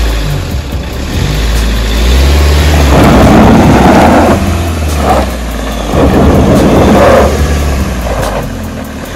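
Mahindra Scorpio's diesel engine running hard in repeated surges of throttle as the rear wheels spin and scrabble in loose gravel and dirt: the rear-wheel-drive SUV is stuck on the slope.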